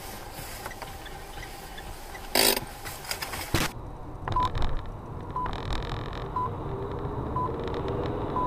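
Low vehicle rumble with a loud sudden burst of noise about two and a half seconds in and a sharp click a second later. After that, a short electronic beep repeats about once a second.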